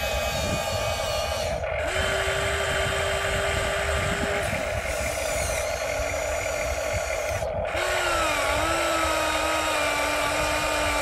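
Huina 1593 remote-control excavator's electric motors whining as its upper body swings round and the boom and arm move. The whine steps to a new pitch a few times, about two, four and eight seconds in, as the motions change.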